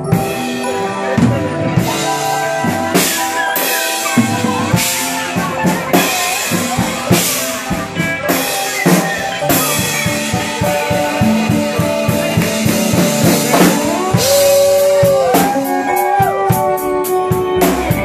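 Live rock band playing, with a drum kit prominent: steady drum and cymbal hits under the band. About fourteen seconds in, long held notes start to bend up and down in pitch.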